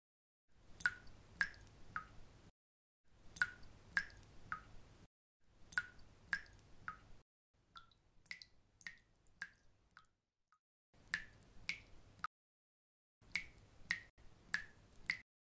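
Sharp clicks in short runs, mostly three at a time about half a second apart, each with a brief ringing tone. The runs are separated by abrupt dead silences.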